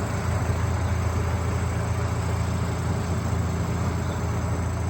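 Heavy machine's diesel engine idling steadily with a low, even hum.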